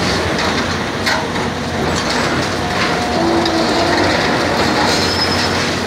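Trevi Benne FR 28P hydraulic crushing jaws on an excavator, crushing reinforced concrete over the machine's steady running: a loud, continuous mechanical noise broken by sharp cracks of breaking concrete, with a brief squeal around the middle.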